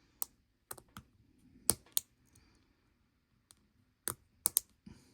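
Irregular small sharp clicks and taps, about a dozen, of a watch strap, spring bars and tools being handled while a resin strap is fitted to a watch case. The loudest come a little under 2 seconds in and as a quick cluster about 4 seconds in.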